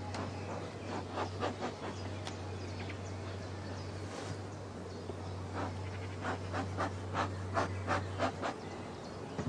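Beehive parts being handled: a run of sharp clicks and knocks, at first scattered and then about three a second for a few seconds, as the hive boxes and frames are lifted and worked. A steady low hum runs underneath and stops shortly before the end.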